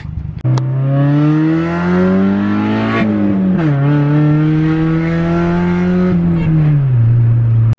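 Honda Civic four-cylinder engine through a custom exhaust, accelerating hard: the pitch climbs steadily, drops sharply at an upshift about three and a half seconds in, climbs again, then falls as it eases off and cuts off abruptly near the end.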